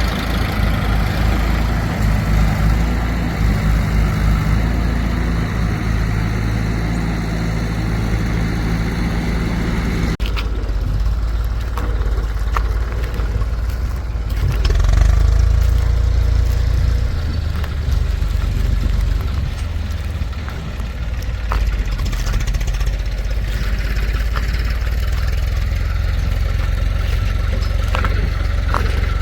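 Heavy diesel machinery engines running, with the sound changing abruptly about ten seconds in and swelling for a while a few seconds later.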